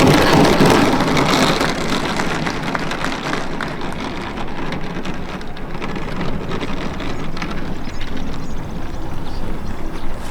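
Large RC aerobatic plane's 120cc DA twin-cylinder two-stroke petrol engine running, a rough noisy drone. It is loudest at the very start and then settles lower.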